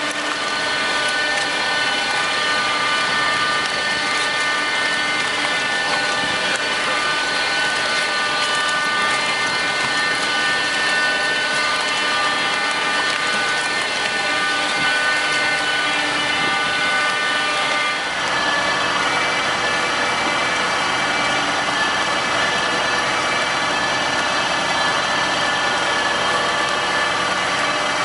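Cabbage harvesting machine running steadily, its engine and belt conveyors giving a continuous hum with steady high tones; the sound changes abruptly about two-thirds of the way through.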